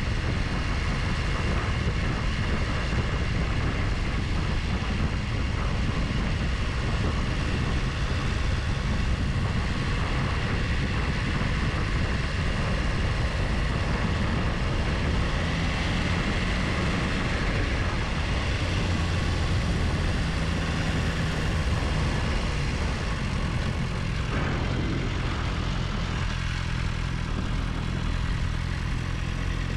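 Motorcycle riding along: a steady engine note mixed with rushing wind noise. Near the end the engine note stands out more clearly as a steady pitched hum.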